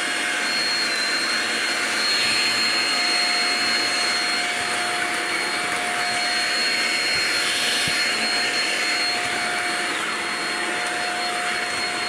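Shark DuoClean stick vacuum running steadily while pushed over a tile floor: a constant rushing suction with a steady motor whine at two pitches, one mid and one high.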